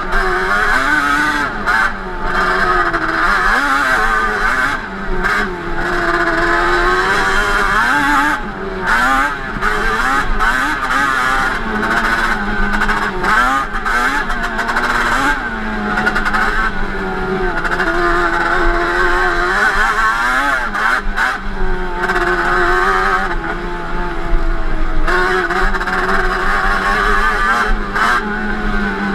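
Yamaha Banshee 350's twin-cylinder two-stroke engine, running through Toomey T5 expansion pipes, revving up and down over and over as the ATV is ridden. Its pitch climbs and drops repeatedly, with steadier stretches in the second half.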